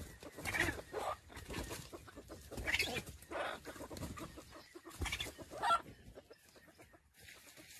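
Jungle fowl roosters clucking: a string of about six short calls over the first six seconds, then quieter.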